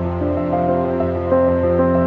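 Background music: a slow, gentle new-age piece of held notes that change every half second or so over a steady low drone.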